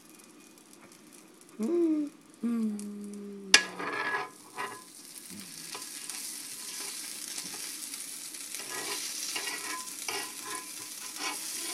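Butter sizzling on a hot nonstick griddle, a hiss that sets in a few seconds in and grows louder, with a metal spoon scraping across the plate as the butter is spread. A sharp click comes just before the sizzle starts.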